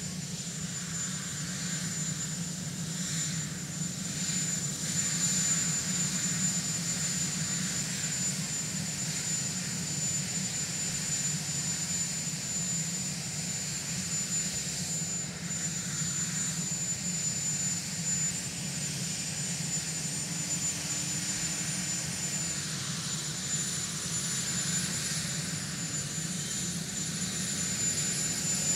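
Marine One, a Sikorsky VH-3 Sea King helicopter, running on the ground with its rotors turning: a steady low drone with a steady high-pitched whine above it.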